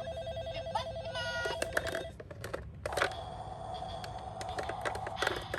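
Toy ambulance minicars sounding their electronic sirens through small speakers: steady electronic tones, a short upward-stepping tone about a second in, then a different held tone from about three seconds. Sharp clicks and clatter of the plastic toy cars run throughout.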